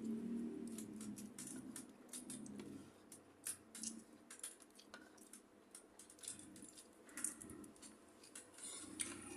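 Close-up eating sounds: irregular small clicks and crunches of chewing and of handling food and dishes, several a second.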